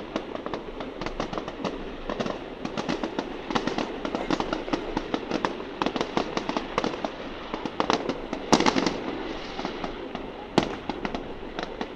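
Fireworks going off: a dense run of sharp crackling pops, with a louder bang about eight and a half seconds in and another about ten and a half seconds in.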